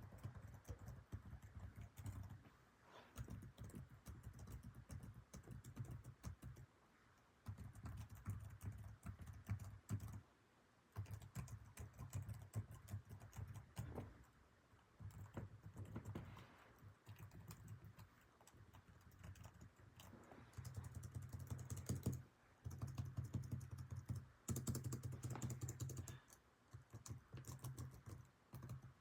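Typing on a Lenovo ThinkPad laptop keyboard: quick runs of soft key clicks lasting a few seconds each, with short pauses between runs.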